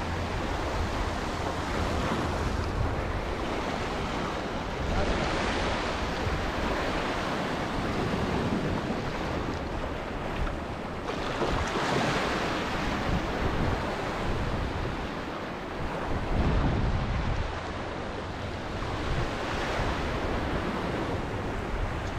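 Sea waves surging and breaking over shoreline rocks, foaming water washing across them, a steady rush that swells louder a few times as bigger waves break.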